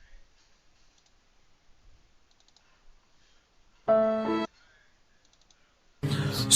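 Short sound-effect clip played over a voice call: about four seconds in, a loud keyboard-like musical tone sounds for about half a second and cuts off abruptly, with faint clicks around it. Loud music starts right at the end.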